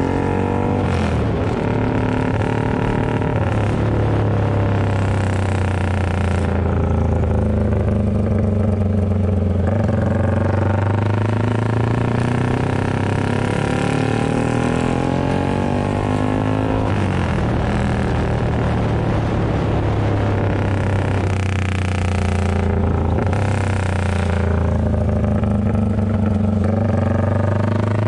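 Yamaha FZ150i (Vixion) 150cc single-cylinder four-stroke engine running through a loud aftermarket GP-style exhaust while riding. The exhaust note climbs and drops repeatedly as the rider accelerates and eases off through the gears.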